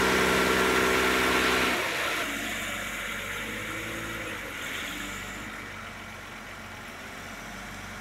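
A mobile crane's engine running steadily while it lifts a load. It is loud for the first couple of seconds, then drops abruptly to a quieter steady run.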